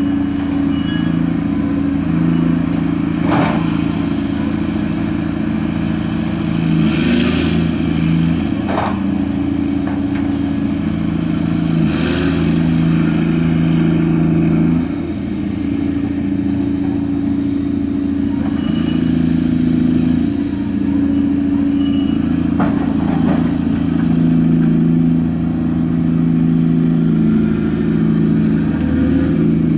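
Engine and hydraulics of a gut ship's grab crane running during cargo handling, the engine's pitch stepping up and down as the crane works. A few sharp knocks and short rushing sounds come over it.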